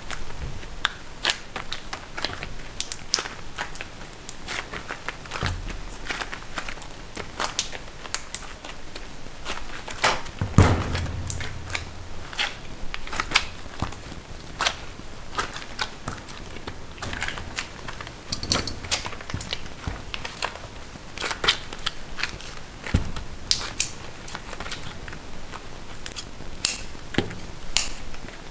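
Irregular clicks, taps and knocks of hands working hot sugar candy dough on a worktable, with one heavier thump about ten seconds in.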